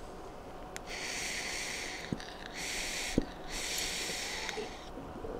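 A person drawing on an eGo e-cigarette and blowing out the vapour: three breathy hisses, with two soft knocks between them.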